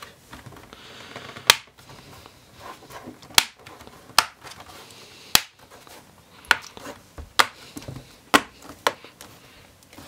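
Plastic clips between a laptop's palm rest and base snapping into place as the edges are pressed down: about eight sharp clicks at uneven intervals.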